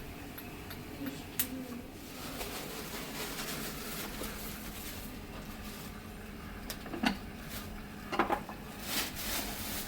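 Steady low background hum with scattered sharp knocks and clatters, the loudest few coming close together near the end.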